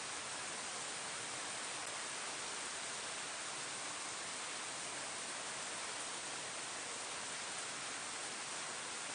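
Steady rain falling on leaves: a continuous, even hiss with no separate drops standing out.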